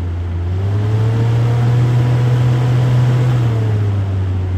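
WORX Nitro 20V cordless 9-inch work fan running loud with a steady motor-and-blade hum. About half a second in its pitch rises as the fan speeds up, holds, then falls back as it slows down again near the end.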